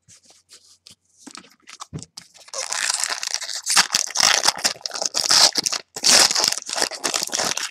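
Foil trading-card pack being torn open and its wrapper crinkled by hand: a few light clicks and rustles at first, then dense crinkling and tearing from about two and a half seconds in, with a brief pause near six seconds.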